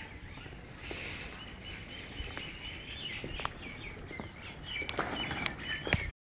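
Small birds chirping over and over in short calls, with a few sharp clicks, the loudest one near the end.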